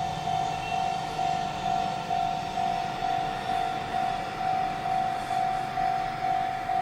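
Japanese level-crossing warning bell ringing: a single electronic ding repeated evenly about twice a second, the signal that a train is approaching and the crossing is closing.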